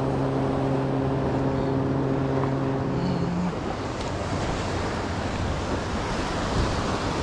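Waves washing against the granite jetty rocks, with wind on the microphone. For about the first three seconds a deep, steady horn blast sounds over the surf, and a brief higher note comes in as it ends.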